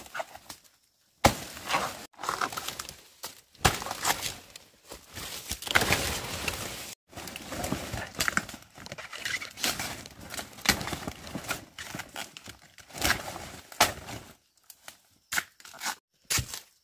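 Plant stems and leaves being broken, torn and handled: irregular crackling, snapping and tearing with sharp cracks, thinning out near the end.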